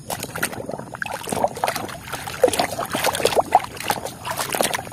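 Muddy water sloshing and splashing irregularly in a plastic tub as a hand swishes and scrubs a plastic toy in it.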